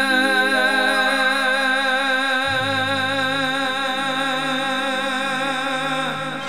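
Gujarati devotional song: a male singer holds one long wavering note over a steady musical drone, with the low accompaniment shifting pitch about two and a half seconds in.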